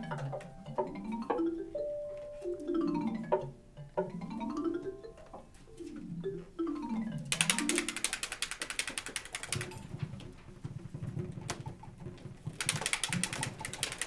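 Cartoon soundtrack music, repeated runs of notes sweeping down and back up. About 7 s in a rapid wing-flapping flutter starts as a cartoon bird flies in, and from about 10 s there is low, quick bird-like chattering.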